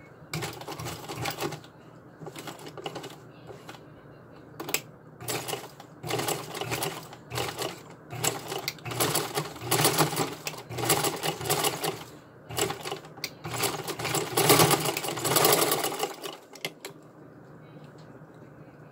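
Black domestic sewing machine stitching through nylon webbing in a series of short runs, each about a second long, that stop a few seconds before the end.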